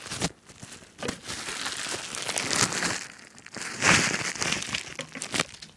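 Plastic packaging bag crinkling and rustling as a power adapter is unwrapped, loudest about four seconds in.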